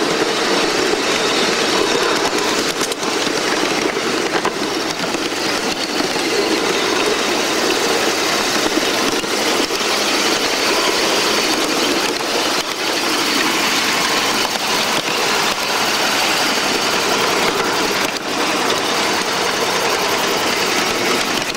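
Ridable live-steam Shay geared locomotive running along the track, heard close from aboard: a steady, dense mechanical clatter and hiss of the engine and its wheels on the rails, with a few faint clicks.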